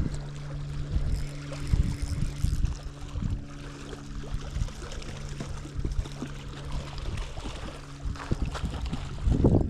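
Wind rumbling in gusts on the microphone over a steady low hum, with water trickling and splashing; the strongest gust comes near the end.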